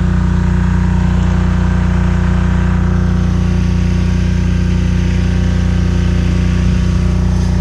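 An engine running steadily at idle, an even drone that does not change.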